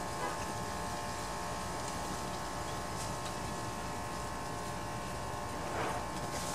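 A steady buzzing hum made of several even tones, with a faint rattle of metal parts being handled about six seconds in.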